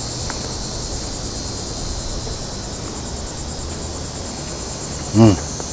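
Steady high-pitched chorus of summer insects, crickets or cicadas, with a fast, even pulsing. A man's voice makes one short sound about five seconds in.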